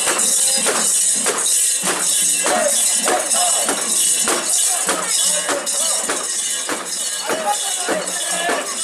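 Metal fittings of a carried mikoshi (portable shrine) jangling in a steady rhythm, about two to three jingles a second, with bearers' voices calling along.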